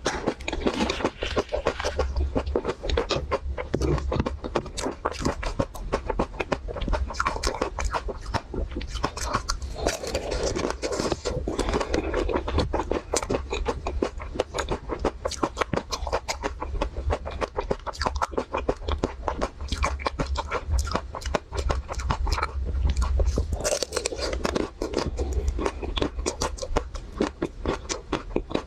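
Close-miked chewing and crunching of chocolate-coated Magnum ice cream bars, the brittle shell crackling in rapid clicks throughout, with wetter mouth sounds a few times.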